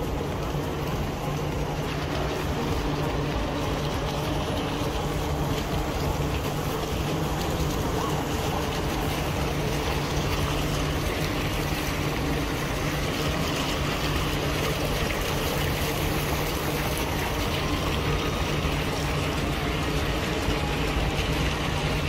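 Small fountain jets splashing into a stone-walled pool, a steady rushing of water, over a steady low mechanical hum.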